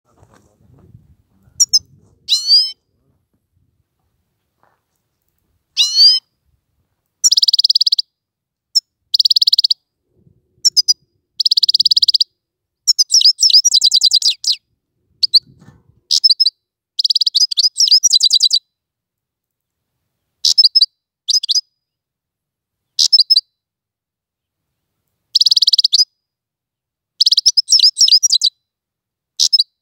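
Goldfinch singing: high, fast twittering phrases and rapid trills, each lasting half a second to a second and a half, with short pauses between them.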